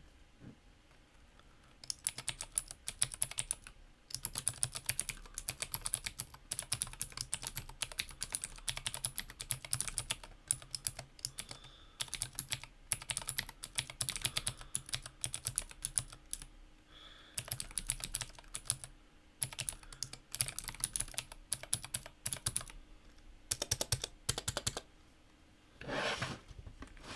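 Fast typing on a Clueboard mechanical keyboard in a Massdrop aluminum case, fitted with clicky Gateron Blue switches and Cherry-profile keycaps: dense runs of sharp key clicks with short pauses between them, starting about two seconds in.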